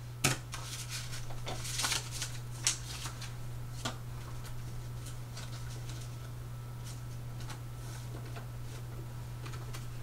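Paper banknotes being handled and flipped through, a soft rustling, with a few sharp clicks in the first four seconds, like calculator keys being pressed. A steady low hum runs underneath.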